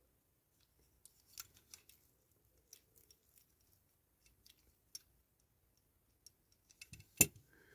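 Faint, scattered small clicks and taps of small parts of a diecast toy model being handled and fitted, with one sharper click near the end.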